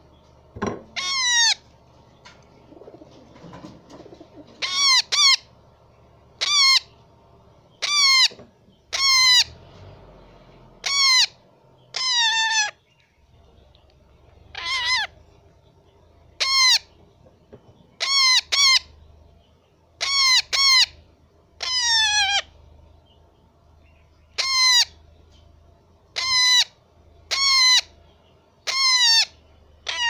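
Baby rose-ringed parakeet calling over and over: about twenty short calls, each dropping in pitch at its end. They come one every second or two, now and then two in quick succession.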